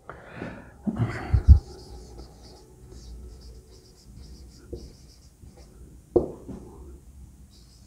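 Marker pen writing on a whiteboard: a run of short, faint scratchy squeaks as the letters are drawn. There are a couple of low thumps about a second and a half in, and a short vocal sound a little after six seconds.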